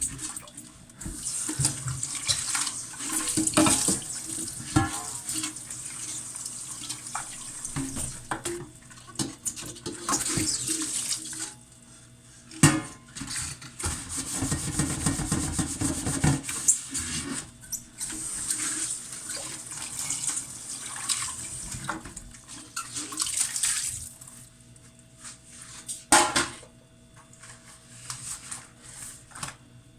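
Pots being washed in a kitchen sink: water running and splashing, with irregular clatters and knocks of the pots, two of them sharper, about halfway through and near the end.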